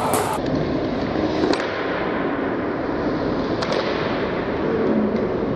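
Steady crowd din in an ice rink just after a goal is scored, a noisy wash of sound with a few faint clicks and knocks.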